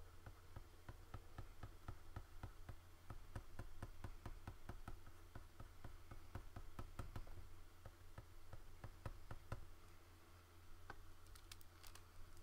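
Faint, rapid light clicking and tapping from work at a computer, several clicks a second for about ten seconds, then a few scattered clicks near the end. A low steady hum runs underneath.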